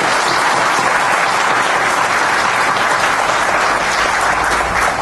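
An audience applauding, a dense steady clapping.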